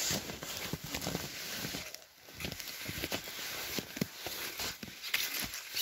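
Snow crunching in short, irregular crunches as a toy sled loaded with dolls is pushed uphill through it, with a short lull about two seconds in.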